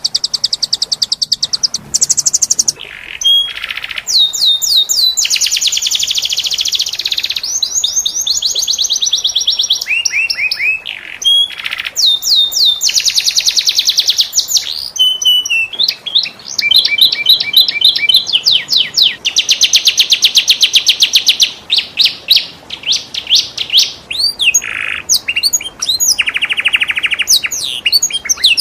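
Domestic canary singing a long, varied song of fast rolling trills and rapid repeated chirps, with only brief pauses between phrases.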